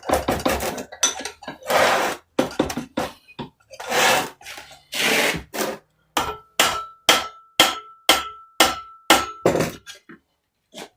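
Hammer tapping on the nut threaded back onto a small engine's crankshaft, to shock the flywheel loose from its taper. Irregular knocks and a few longer, rougher noises come first, then about eight evenly spaced taps, two a second, with a ringing metallic note.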